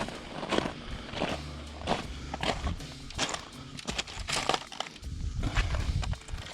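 Footsteps crunching on rough ground, about two steps a second, with some low rumble underneath.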